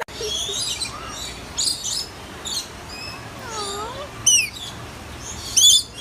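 Birds calling: a scatter of short high chirps and whistles, with a quick falling squeal about four seconds in.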